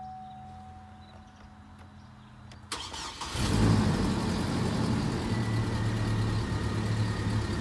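2010 Chevy Colorado engine cranking briefly and catching about three seconds in, then idling steadily. It is starting on temporary hot-wired connections after a no-crank, no-start fault.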